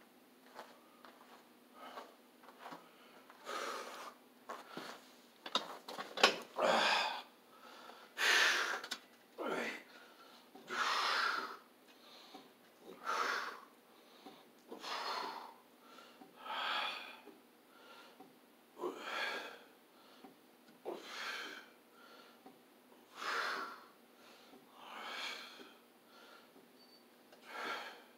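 A man breathing hard as he works a neck machine, with a forceful exhale on each repetition, about one every two seconds. A sharp knock comes about six seconds in.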